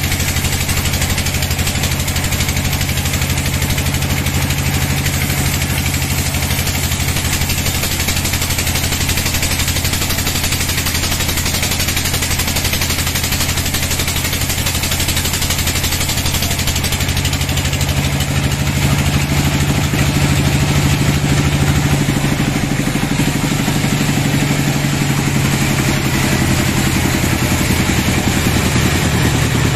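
Large horizontal band sawmill running steadily, a loud low hum from its drive with a constant mechanical rush over it. It grows a little louder about two-thirds of the way in.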